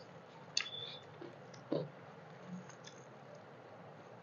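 Quiet eating sounds: chewing, and fingers mixing rice and curry on steel plates, with a few short clicks, the sharpest about half a second in.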